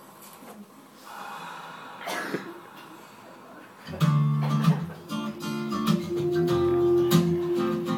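Faint sounds with a brief swish about two seconds in, then acoustic guitar strumming starts suddenly about four seconds in and carries on as a commercial's soundtrack, heard from a projector's speakers in a room.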